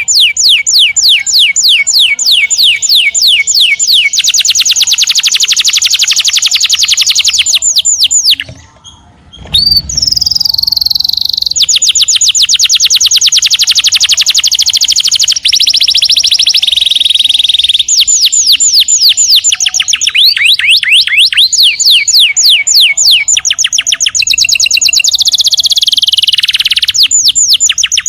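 Domestic canary singing loudly in long, fast trills of rapidly repeated falling notes, phrase after phrase, with a brief break about nine seconds in.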